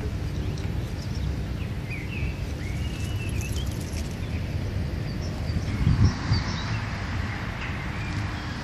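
Small birds chirping now and then over a steady low rumbling background, with a dull bump about six seconds in.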